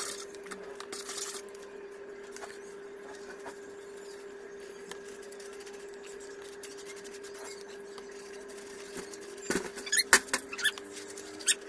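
Hands rubbing and pressing on a thermocol (expanded polystyrene foam) wing: faint scratching about a second in, then a quick run of squeaks near the end as the foam is rubbed under the hand. A steady faint hum runs underneath.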